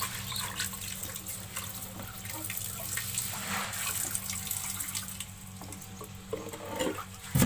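Running water pouring into a small glass aquarium and splashing inside it while a hand rubs the glass to rinse it. There is one sharp thump just before the end.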